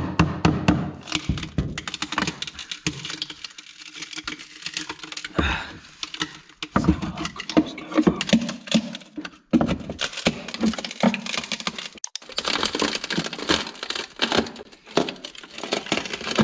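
A hammer striking a screwdriver wedged into the joint of painted wooden pipe boxing, a quick run of sharp taps in the first second or so. Then the boxing is levered off with the hammer's claw, the wood cracking and splintering in irregular bursts as the panel breaks away.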